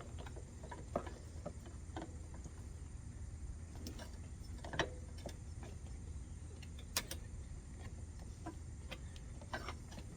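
Occasional light clicks and taps of small mower-engine parts being handled and fitted back together, a few seconds apart, over a low steady hum.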